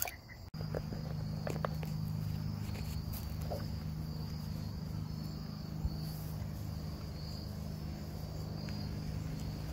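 Crickets chirping steadily, with a low steady hum that starts abruptly about half a second in and a few faint clicks.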